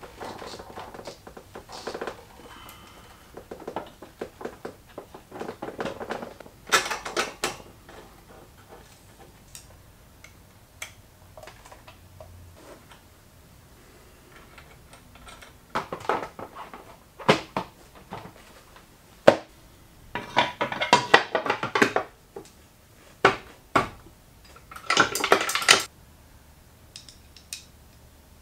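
Hand tools clinking and clattering against the metal parts of a moped's rear end in irregular bursts, with louder spells about 7, 16, 20 and 25 seconds in and a single sharp knock just before the 20-second spell.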